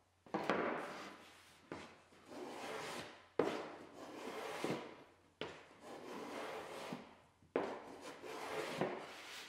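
Small block plane pushed along the edge of a birch plywood panel, shaving off curls of wood in about six separate strokes, each starting sharply and lasting a second or two.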